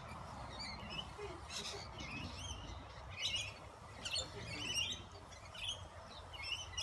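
Lorikeets chattering: clusters of short, high chirps repeating every second or so.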